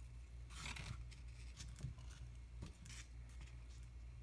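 A few short, soft scrapes and rustles of hands pulling monofilament fishing line through the wiring holes of a wooden Langstroth bee frame, over a steady low hum.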